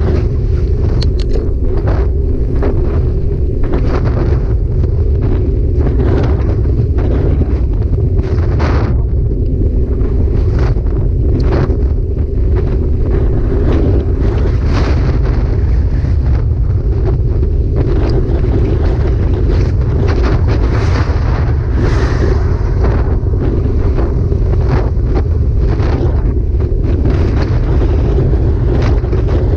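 Heavy wind buffeting the microphone, a loud steady low rumble, broken by frequent short knocks and rattles.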